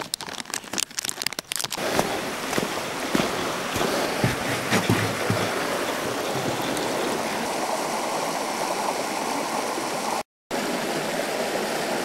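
A chocolate wrapper crinkles for about the first two seconds as it is opened, then a small rocky forest brook runs steadily over stones. The water sound breaks off briefly near the end.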